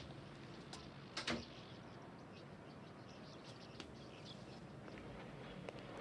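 Budgerigars in a wire cage chirping faintly and intermittently, with a couple of sharp clicks a little over a second in.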